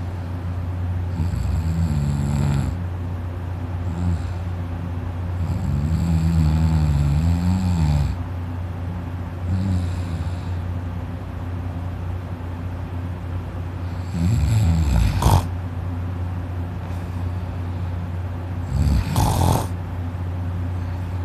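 A man snoring loudly in deep sleep: a string of snores every few seconds, some long and drawn out, the last two ending in a sharp snort-like burst, over a steady low hum.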